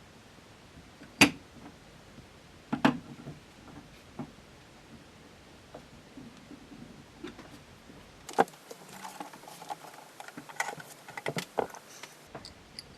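Scattered clicks and knocks of metal parts being handled while rack ears are fitted back onto a synthesizer module's chassis: two sharper knocks early on, then a busier run of small clicks and rattles about eight seconds in.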